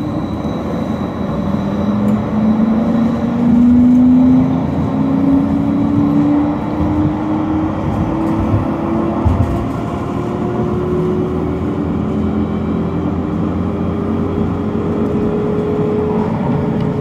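Siemens Combino tram heard from the driver's cab as it accelerates: the traction motors give a whine that climbs steadily in pitch over the continuous rumble of the wheels on the rails.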